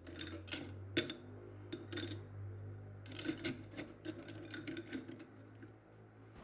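Small pieces of old brass scrap clinking and scraping against each other and the rough ceramic crucible wall as they are packed in by hand: irregular clinks in small clusters, with a sharper clink about a second in.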